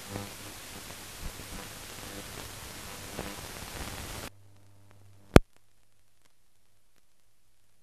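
Steady hiss and faint hum of a soundless newsreel transfer, cutting off suddenly about four seconds in. A single sharp click comes about a second later, then only a faint low hum.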